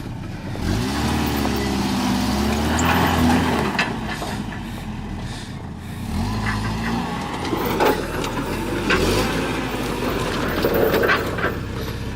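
Off-road truck engine revving up and easing off in two spells, with a few sharp knocks and bangs from the truck jolting over the terrain in the later part.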